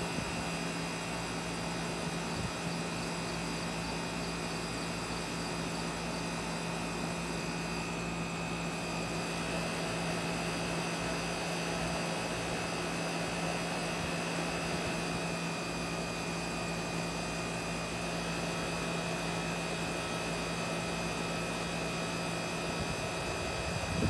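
Central air conditioner's outdoor condensing unit running steadily: the fan's rush of air, with a steady low hum and a thin high tone held underneath.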